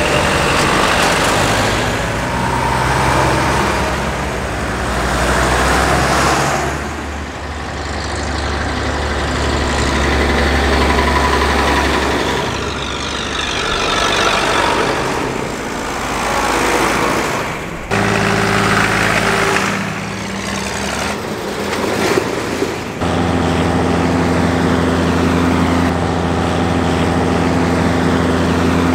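Diesel engines of Mercedes-Benz Unimogs and MB trac tractors driving past one after another at low speed. The engine sound swells and fades as each vehicle goes by, and changes pitch as a new one approaches.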